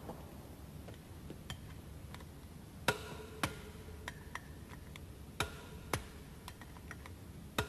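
Sharp metallic clicks from a torque wrench and socket tightening the flywheel bolts to 85 Nm. About a dozen irregular clicks, a few of them louder.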